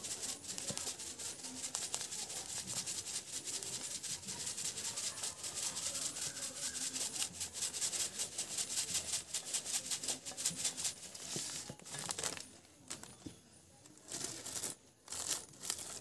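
Carom seeds trickling from a plastic bag onto leaves in a clay pot: a steady fine pattering hiss with some crinkling of the plastic. It thins out about twelve seconds in, leaving a few separate rustles.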